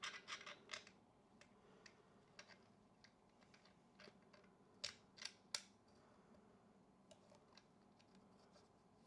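Faint clicks, taps and scrapes from handling and cleaning a Super 8 film camera, with three sharper clicks about five seconds in.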